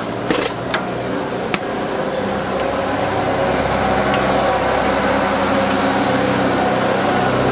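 Street noise with an engine running steadily, getting a little louder about three seconds in, and a few sharp clicks in the first two seconds.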